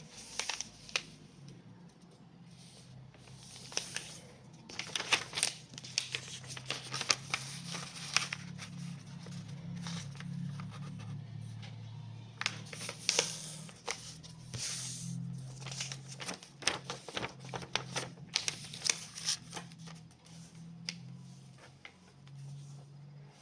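A sheet of paper being folded and creased by hand into a paper airplane: repeated crinkles and sharp creasing strokes, thickest from about four seconds in, with a low steady hum underneath.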